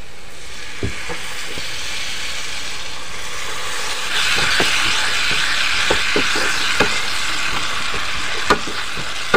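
Water poured into a hot pan of fried onion and spice masala sizzles steadily. The sizzle grows louder about four seconds in as a wooden spatula stirs the gravy, with a few sharp taps of the spatula against the pan.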